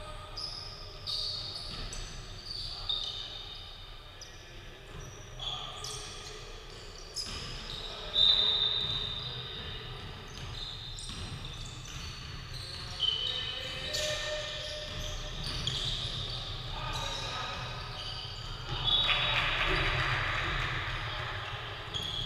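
Basketball game sounds in a large echoing sports hall: sneakers squeaking on the wooden court, the ball bouncing, and players calling out to each other.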